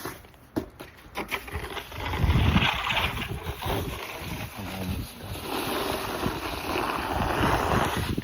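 Snow shovel scraping along a driveway, pushing snow: a few knocks, then two long scraping strokes.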